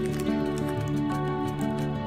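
Gentle background music with a steady run of melodic notes.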